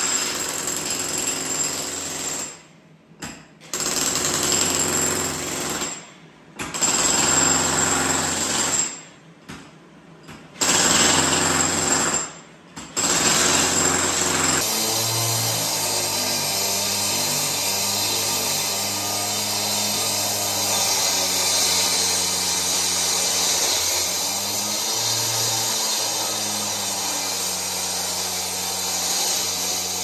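Corded electric jackhammer breaking up a concrete floor in five runs of a few seconds each, with short breaks between. About halfway through it gives way to a gas-powered concrete cut-off saw running steadily as it cuts the slab, its engine pitch rising and falling.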